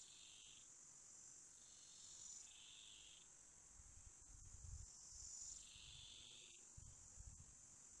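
Faint insects trilling: one steady high-pitched trill runs throughout, and shorter, lower trills swell in and out every second or two. A few faint low rumbles come around the middle and near the end.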